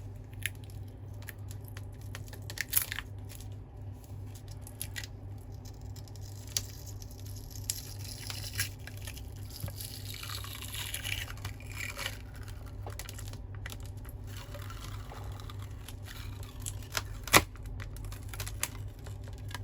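Small clicks and taps of tools on a smartphone's internal parts over a steady low hum, with a drawn-out tearing sound falling in pitch about eight to twelve seconds in, as the battery is prised and peeled off its adhesive. A sharper click comes near the end.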